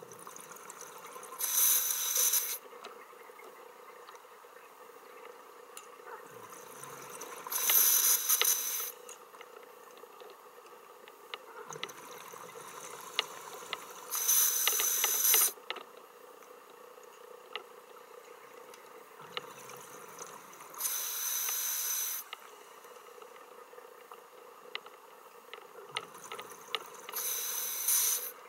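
Scuba diver breathing through a regulator underwater: five bursts of exhaled bubbles, about one every six and a half seconds and each lasting about a second, with quieter inhalations between them. A faint steady hum runs underneath.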